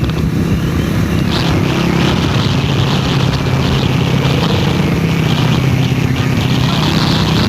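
Motorcycle engines running steadily on the move, with a rushing of wind and road noise.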